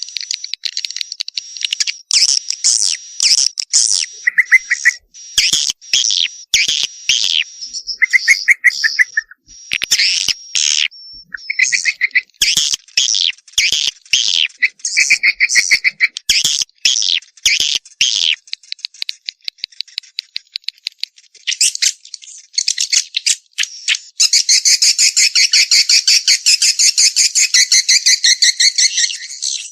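Swiftlet lure-call recording of edible-nest swiftlet chatter, the call used to draw young swiftlets. It is a stream of sharp high chirps and clicking twitters broken by quick buzzy trills. A dense, continuous buzzing twitter fills the last few seconds.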